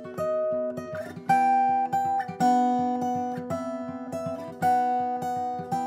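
Background music: an acoustic guitar strumming chords in an instrumental gap between sung lines, the chord changing about once a second.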